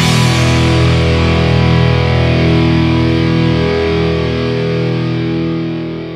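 Rock soundtrack ending on a single held distorted electric guitar chord that rings out and slowly fades away.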